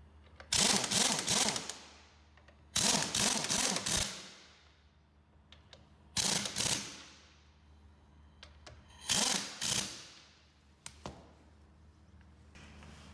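Pneumatic impact wrench hammering on a car wheel's lug nuts, driving them tight as the wheel goes on: four bursts of rapid hammering, each about a second long, a few seconds apart.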